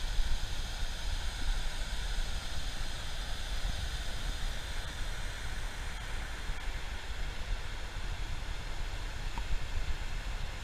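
Steady rushing of river water cascading over a small waterfall, an even hiss with no breaks, over a low fluttering rumble on the microphone.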